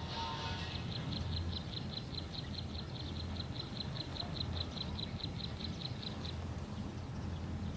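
A rapid, even series of short high chirps from a small animal, about six or seven a second, stopping shortly before the end, over a low steady hum.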